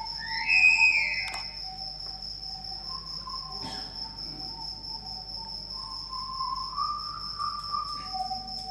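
Steady high-pitched cricket chirring throughout, with faint held whistle-like tones underneath. One of these tones glides upward in the first second, and there is a single soft knock about midway.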